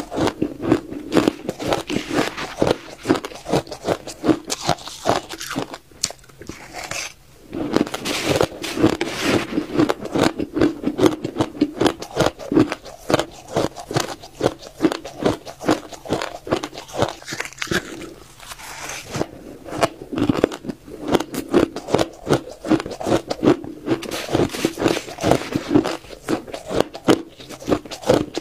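Crisp, dry blender-shaved white ice crunched between the teeth in quick, dense bites, picked up close on a clip-on microphone, with a short break about six seconds in.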